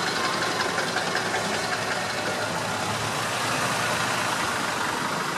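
Land Rover's engine running at low revs as it rolls slowly past close by at walking pace.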